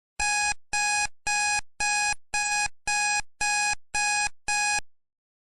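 Countdown timer sound effect: nine identical electronic beeps, about two a second, ending shortly before the time runs out.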